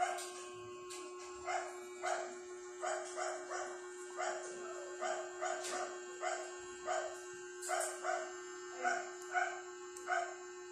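A dog barking over and over at an even pace, about two barks a second, over a steady hum.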